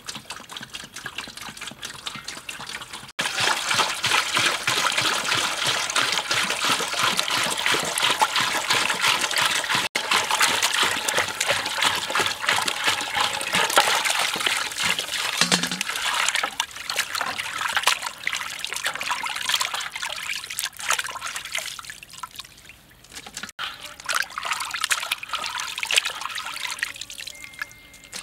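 Water pouring from a plastic jerrycan into an aluminium basin of raw meat, splashing heavily from about three seconds in and easing off after about twenty seconds. Near the end, hands swish the meat about in the water.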